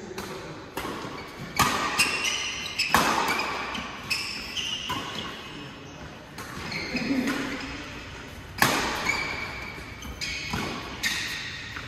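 Badminton rally: rackets smacking a shuttlecock back and forth, sharp smacks a second or two apart that echo around a large hall, with short squeaks of court shoes between the hits.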